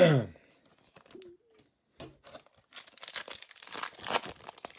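Foil wrapper of a Topps baseball card pack being torn open and crinkled by hand. There is a rapid run of crackling that starts a little under three seconds in and keeps going.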